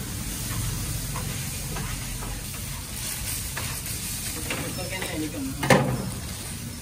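Large knife cutting through a paper-wrapped grilled shawarma on a stainless-steel counter, with one sharp knock near the end as the blade meets the steel. Steady sizzling of frying runs underneath.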